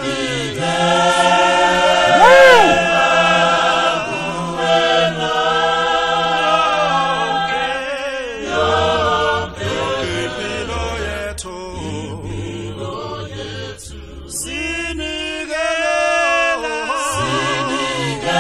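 African gospel choir recording singing sustained chords in close harmony. A little past the middle the upper voices thin out and a low part carries on more quietly, then the full choir comes back near the end.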